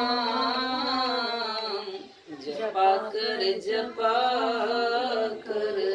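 A woman singing a Hindi devotional bhajan in praise of Ram. She holds one long note for about two seconds, breaks off briefly, then carries on with a wavering melodic line.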